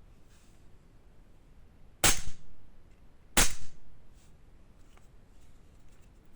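Gas-powered airsoft pistol, a replica Sig Sauer P320 running on propane, fired twice, about a second and a half apart: two sharp cracks with a short ring after each.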